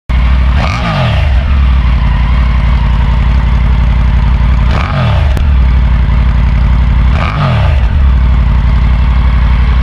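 Triumph Tiger 900 Rally Pro's 888 cc inline three-cylinder engine idling, heard close at the exhaust silencer. Three short throttle blips a few seconds apart each rev it up and let it drop straight back to idle.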